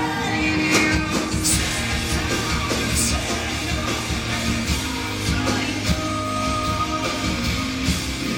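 Live rock band playing through a concert PA: electric guitars, drums and a male lead vocal, heard from within the audience.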